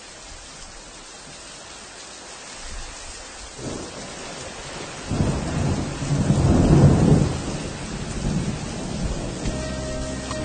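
Steady rain with a roll of thunder that builds about five seconds in and then fades. Music starts coming in near the end.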